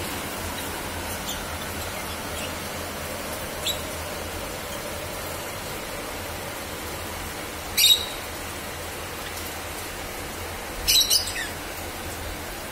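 Java sparrows giving short, high chirping calls over a steady hiss: a faint call, then a loud one about halfway through, and a quick double call near the end.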